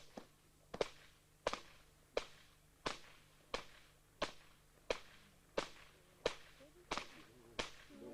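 Whips cracked over and over in a steady rhythm, about a dozen sharp cracks at roughly three every two seconds.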